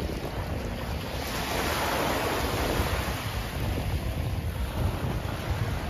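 Sea waves washing onto the shore, with wind buffeting the microphone.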